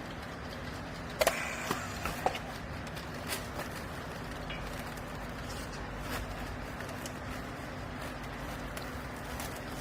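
Steady machine hum with a constant low tone, broken by a quick cluster of sharp metallic knocks about a second in.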